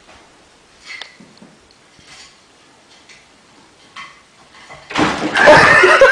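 A few faint taps as a cat climbs along the back of a wooden chair, then a sudden loud burst of noise lasting about a second and a half near the end as the cat gets down to the tiled floor.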